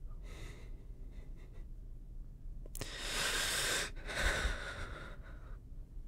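A person's breathing: a faint breath near the start, then a long breath in about three seconds in, let out again in a sigh.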